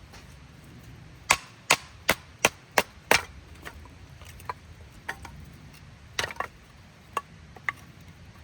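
Dry wood cracking sharply: a quick run of six loud snaps about a third of a second apart, then a few scattered, quieter ones.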